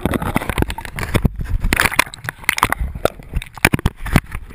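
Water sloshing and splashing right at the microphone: a quick, irregular run of sharp knocks and clicks over a low rumble.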